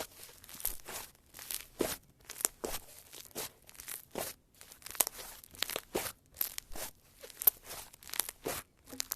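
Slime being worked by hand, giving irregular sharp crackling pops, about two or three a second.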